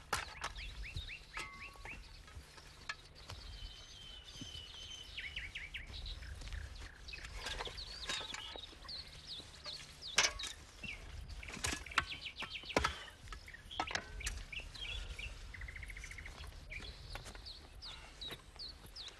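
Songbirds chirping and twittering, with a few sharp scrapes and strikes of steel shovels digging into soil.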